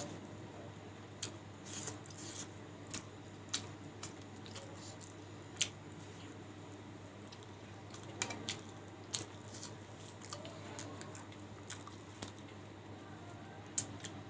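Close-up eating sounds of a person eating rice and curry by hand: wet chewing and squishing with sharp clicks and smacks at irregular intervals, over a steady low hum.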